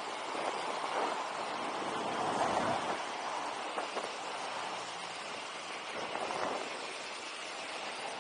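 Steady rushing noise of a BMX bike rolling along a grooved concrete bridge path, tyre roll on the deck blended with wind and passing traffic, with a few faint clicks.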